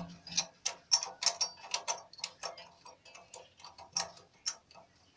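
Light metallic clicking and clinking of a spark plug box spanner being turned by hand on a generator's spark plug to screw it in, irregular at about four or five clicks a second and growing fainter near the end.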